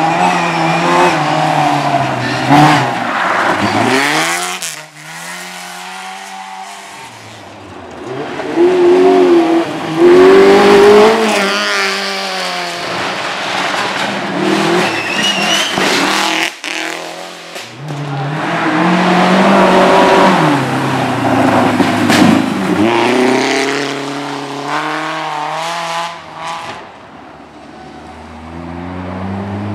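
Rally cars driven hard past at a minisprint stage, engines revving high and dropping repeatedly through gear changes and lifts off the throttle, with some tyre squeal. There are loud swells as cars come by at about the start, around ten seconds in, and around twenty seconds in.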